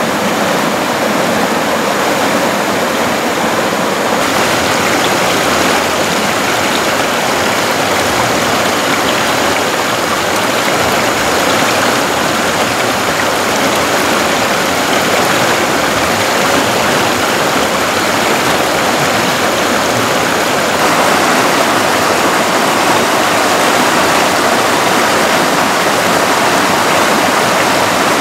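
Shallow stream rushing over rocks in a small cascade, a loud steady rush of water that swells slightly near the end.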